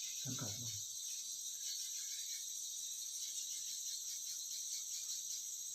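Insects chirring steadily in a high, continuous drone, with a short low sound about a third of a second in.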